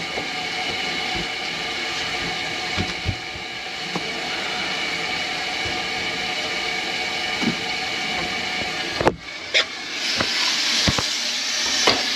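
Kitchen faucet running into a stainless steel sink, a steady rush of water with a few light knocks. The sound changes abruptly a little after nine seconds.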